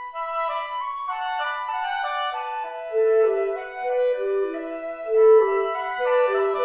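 Background music: a gentle melody on woodwinds, flute and clarinet, in slow held notes with several parts moving together.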